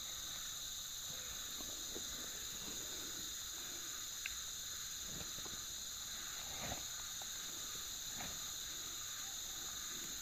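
Steady insect chorus of crickets or cicadas: a continuous high-pitched drone in two pitch bands, with a few faint soft knocks.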